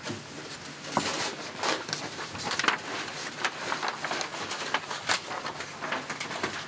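Sheets of paper rustling and crinkling as documents are unfolded and leafed through, with irregular crackles and a few sharper snaps.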